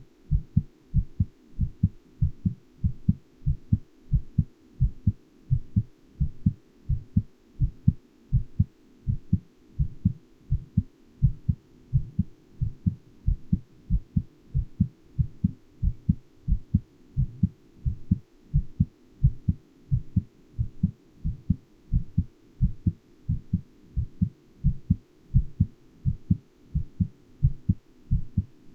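A human heart beating steadily at a little over one beat a second, each beat a low, muffled lub-dub pair of thumps.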